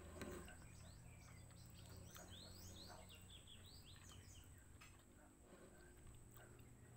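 Faint bird chirping: a quick run of short rising notes lasting about two seconds, in otherwise quiet surroundings.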